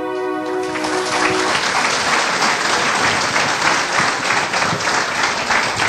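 Audience applauding as a song ends, the clapping swelling in over the first second and holding steady. The last held organ chord dies away beneath it in the first second and a half.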